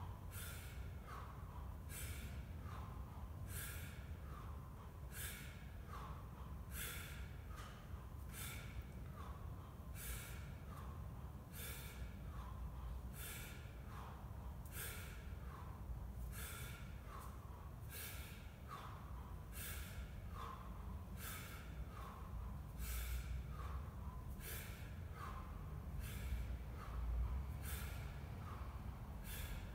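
A man's sharp, hissing breaths through the nose and mouth in a steady rhythm, about one a second, timed to each rep of one-arm 24 kg kettlebell swings. These are breaths forced out under exertion.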